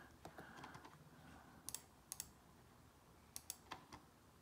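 Faint clicking on a MacBook Pro laptop's trackpad: a few quick pairs of clicks over near-silent room tone.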